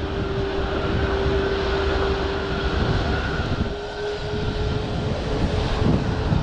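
Four jet engines of an Airbus A340-600 running on the runway for takeoff: a steady whine over a low rumble, the whine rising slightly in pitch near the end as the engines spool up.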